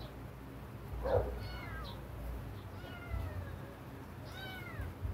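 Sick kitten mewing several times, thin high cries that slide in pitch, with a short louder noise about a second in.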